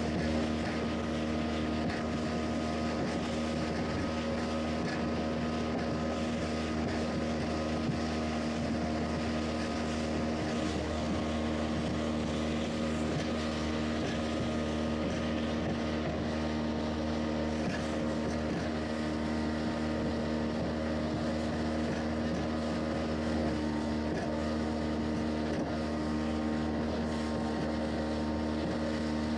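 Motorboat engine running steadily at cruising speed, with the rush of water spray and wind noise.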